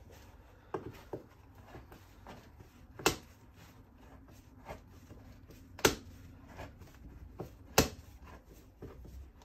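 Gloved hands handling a diesel heater unit and its fittings on a workbench: rubbing and shuffling, broken by a few sharp clicks and knocks, the loudest about three, six and eight seconds in.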